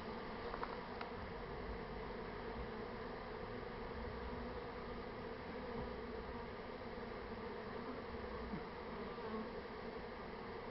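Steady hum of a honey bee swarm in flight, with the bees gathering and settling on the front of a hive.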